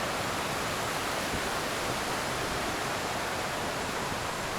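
A steady, even rushing noise with no distinct events, like running water or wind on the microphone.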